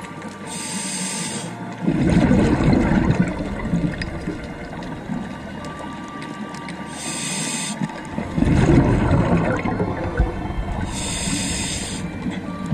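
Scuba diver breathing through a regulator underwater: three short hissing inhales, each of the first two followed by a longer rush of exhaled bubbles.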